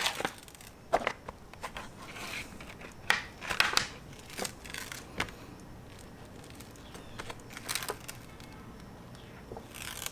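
Adhesive backing liner being peeled off a custom-cut sheet of foam boat flooring, with irregular crackling, crinkling and short tearing rasps.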